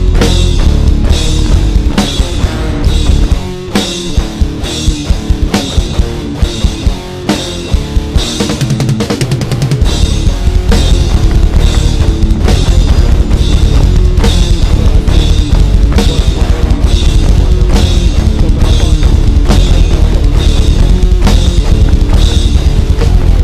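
Hardcore punk band playing loud, with distorted guitar and pounding drums and no vocals. About three seconds in the deep bass drops out, leaving drums and guitar. The full band crashes back in about ten seconds in.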